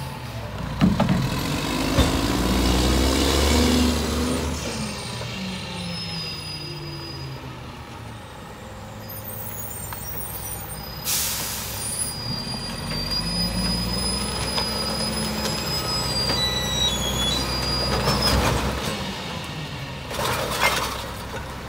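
Mack MR garbage truck's diesel engine revving as the truck pulls away, then running as it rolls ahead to the next stop. Sharp air-brake hisses come about halfway through and again near the end as it stops.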